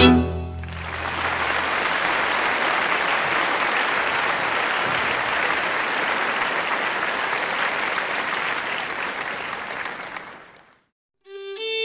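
The band's last chord rings out for a moment, then an audience applauds steadily for about ten seconds before the clapping fades away. Instrumental music starts again just before the end.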